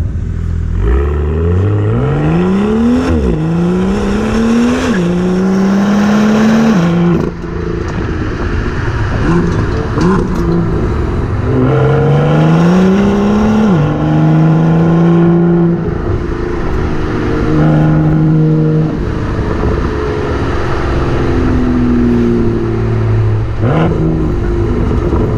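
BMW M2's turbocharged 3.0-litre straight-six accelerating: the revs climb, drop back at upshifts, climb again, then settle to steady cruising, twice over. A short blip of revs comes near the end.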